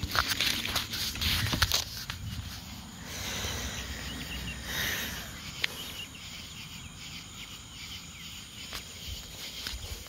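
Rustling and sharp clicking, heaviest in the first two seconds, over quieter animal sounds from birds kept in a pen.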